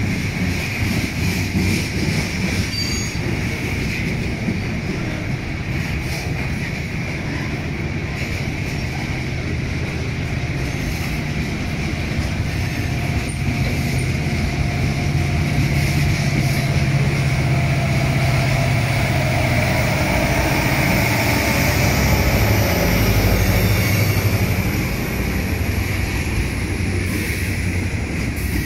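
Freight train's covered hoppers and tank cars rolling past close by: a steady rumble of steel wheels on rail with a high wheel squeal throughout. The rumble grows louder a little past the middle and eases a few seconds before the end.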